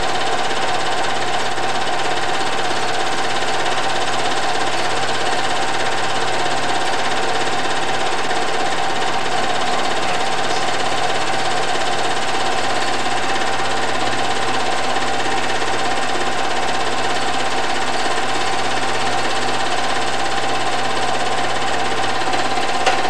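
Film projector running with a steady mechanical whir as old home-movie reels are played back.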